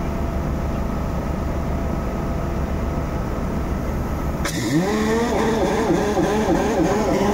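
Drilling-rig machinery running with a steady low rumble. About four and a half seconds in, a louder warbling tone joins in, its pitch rising and falling over and over.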